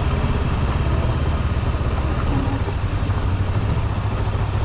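Macbor XR5 motorcycle engine running steadily with a low, even pulse.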